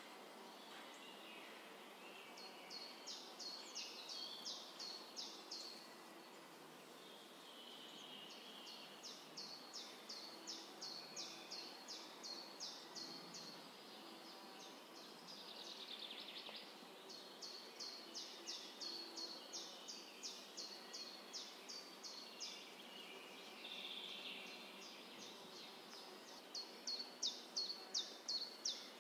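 Quiet outdoor ambience. High, sharp chirps repeat about four times a second in runs of three to four seconds, four runs in all, and softer warbling bird song comes between them.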